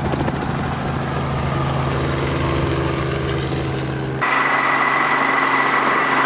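Helicopter in flight, its engine and rotor running steadily. About four seconds in the sound changes abruptly to a thinner one with a steady high whine.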